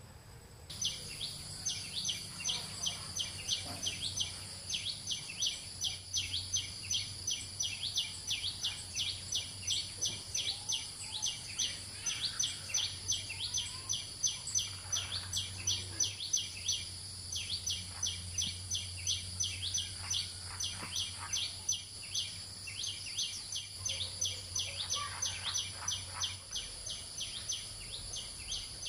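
Forest wildlife ambience: a rapid, evenly repeated high chirp, about four a second, over a steady high hiss, starting abruptly about a second in. Faint rustles of leaves and plants being handled come and go beneath it.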